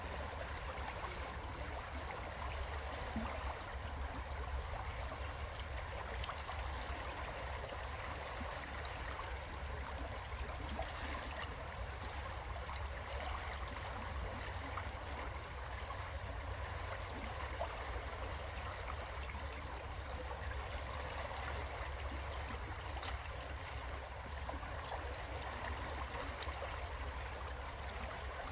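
River water flowing steadily: a continuous, even rush with no breaks.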